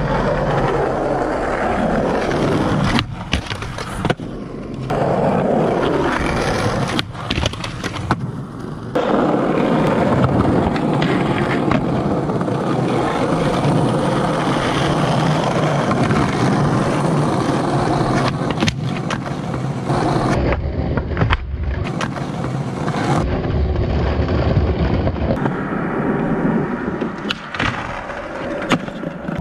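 Skateboard wheels rolling over paving and concrete, with sharp clacks of tail pops, board impacts and landings. The sound changes abruptly at several cuts from one clip to the next.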